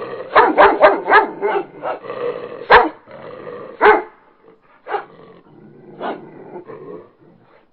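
Small dog barking in play: four quick barks about half a second in, then single barks about a second apart, growing weaker toward the end.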